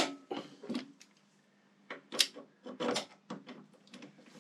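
Wrench tightening Harley-Davidson rear brake caliper bolts to a final torque of 20: a string of irregular sharp metal clicks and clacks, over a faint steady hum.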